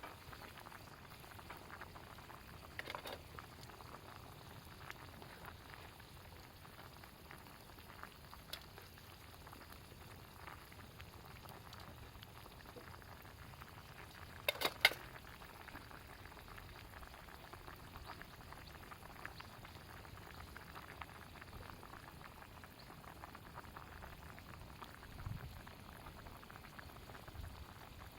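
Food bubbling steadily in a pan over a campfire, faint, with scattered small crackles. A quick cluster of sharp pops about halfway through is the loudest sound.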